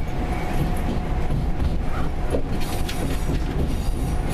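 Interior of a PESA EN81 electric multiple unit running along the track: a steady low rumble with a thin constant whine above it, and a few short clicks about halfway through.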